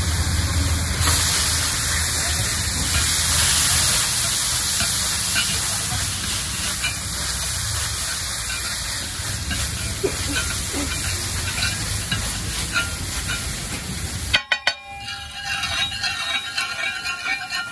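Eggs sizzling as they fry in a hot pan while being stirred with a spatula, a steady hiss. Near the end the sizzle cuts out abruptly and sharper, ringing metallic clinks take over.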